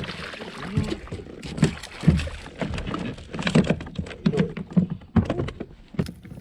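Irregular knocks, bumps and splashes on a kayak as a hooked pickerel is landed and handled.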